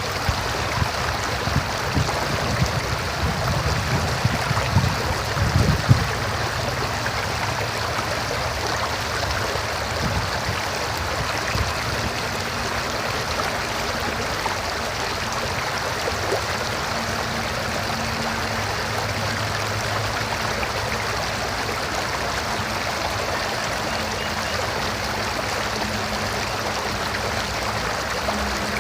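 River water flowing and rushing over rocks in a steady stream. A few low bumps come in the first several seconds, and a faint low hum runs underneath later on.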